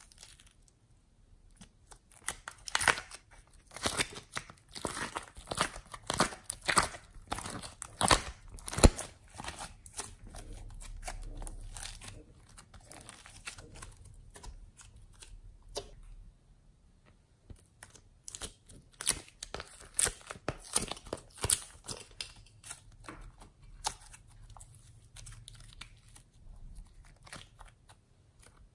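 Slime being stretched, pulled and squished by hand, the sticky slime giving off quick crackling pops and snaps as it tears and unsticks. The crackling thins out to a quieter stretch in the middle, then picks up again.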